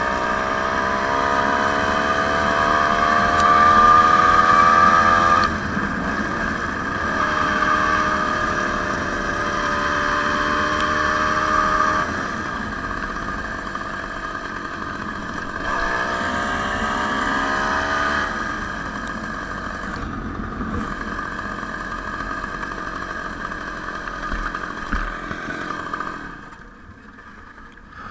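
Homemade moped's two-stroke Ural chainsaw engine running under throttle, its pitch rising twice as it revs up and easing back in between. Near the end the engine sound drops away sharply.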